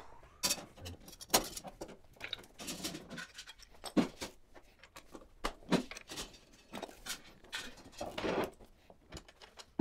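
Scattered light clicks and knocks of a road bicycle being lifted, moved and handled, with a few duller thuds and footsteps among them.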